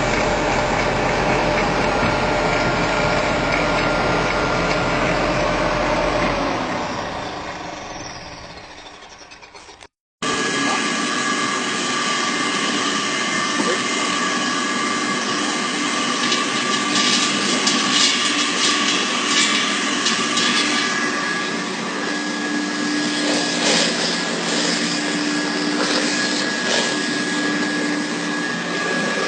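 Electric machine running steadily with a low hum, then switched off and winding down over a few seconds. After an abrupt cut a second machine runs steadily, with scattered clicking partway through.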